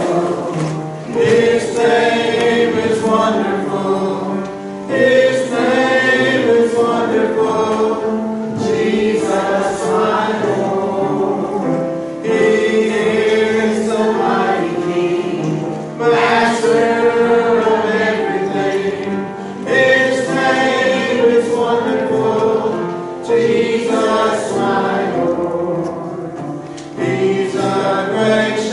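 Church congregation singing a hymn together, in phrases of about four seconds with short breaths between.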